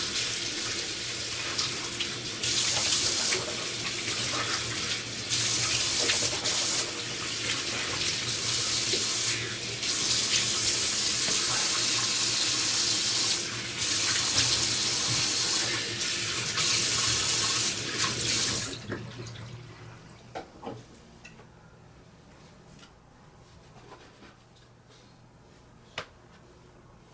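Water running in the bathroom: a steady hiss that steps up and down in level, shut off sharply about 19 seconds in. A few faint clicks follow in the quiet.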